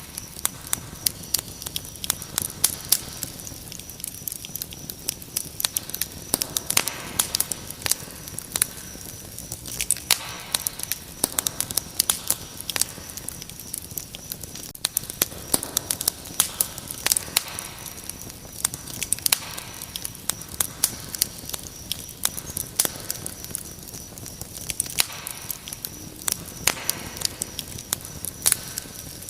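Wood fire crackling with frequent irregular sharp pops and snaps, over a steady high-pitched cricket trill.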